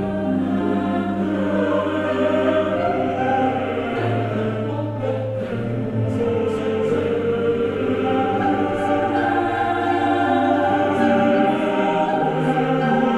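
Background choral music: voices in slow, sustained chords over a held low bass note, which drops out near the end.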